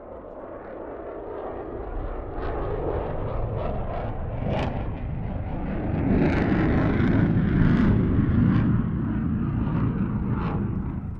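Military jet flying past at a distance, its rumble building to a peak and then easing, with sharp crackling snaps in the jet noise.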